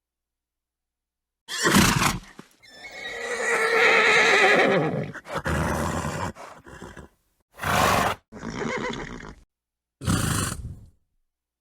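Horse sounds separated by dead silence: a short snort, then a long whinny about three seconds in, followed by more breathy snorting and two further short snorts near the end.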